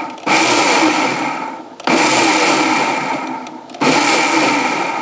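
Electric kitchen mixer grinder with a steel jar, run loudly in pulses of about two seconds with brief stops in between, grinding cut dragon fruit into pulp.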